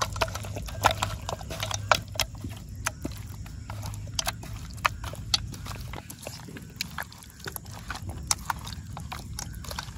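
Hands kneading and turning whole quail in a wet curd-and-spice marinade: irregular wet squelches and smacks, a few each second.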